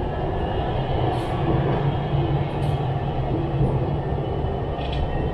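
Hanoi Metro Line 2A train running at speed on its elevated track, heard from inside the carriage: a steady low rumble of wheels and running gear with a faint whine above it.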